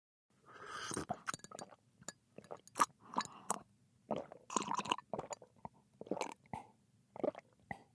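Close-up of a person drinking liquid: a slurping sip about half a second in, then a run of irregular gulps and wet swallowing clicks.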